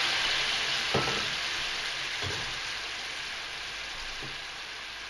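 Chanterelles sizzling and bubbling in a hot pan just deglazed with white wine. The hiss is loud at first and gradually dies down. There is a light knock about a second in.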